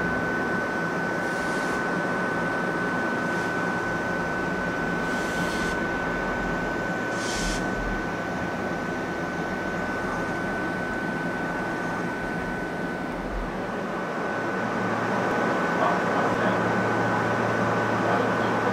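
Ichibata Electric Railway 2100-series electric train standing at the platform with its rooftop air conditioners and on-board equipment running: a steady hum and noise under one constant high whine. Three short hisses come in the first eight seconds, and a deeper hum joins about 15 seconds in.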